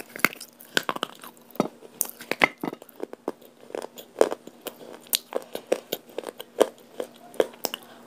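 Close-up crunching of broken baked-clay pot pieces bitten and chewed between the teeth: sharp, irregular crunches, about two a second.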